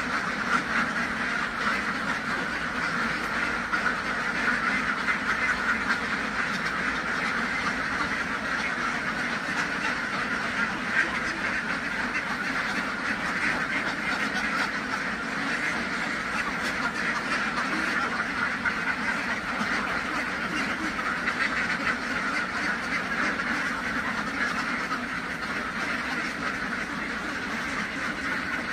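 A flock of domestic ducks quacking without a break, many voices overlapping.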